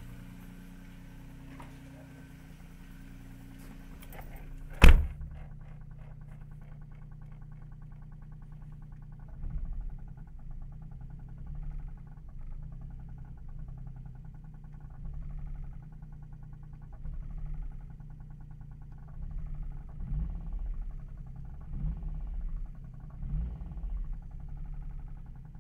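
Daihatsu EF-RL three-cylinder DOHC turbo engine of a Kancil idling. A car door slams shut about five seconds in, and from inside the cabin the idle carries low knocks every second or two. This is the knocking that is loud in the cabin yet sounds normal at the engine, which the owner suspects comes from a connecting-rod bearing, the crank or the head.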